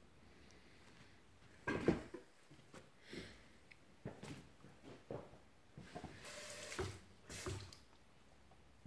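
Rock specimens being handled, turned over in the hands and set down: a series of irregular soft knocks and scrapes, the first, about two seconds in, the loudest.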